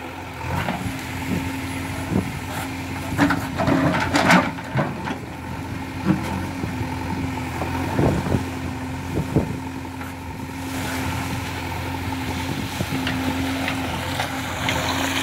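JCB 3DX backhoe loader's diesel engine running steadily under hydraulic load while the backhoe digs, with knocks and clatter from the bucket working wet mud and stones, thickest a few seconds in and again about halfway through.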